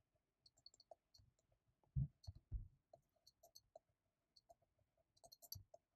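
Near silence with faint, scattered clicks from writing on a computer canvas, and two soft low thumps about two seconds in.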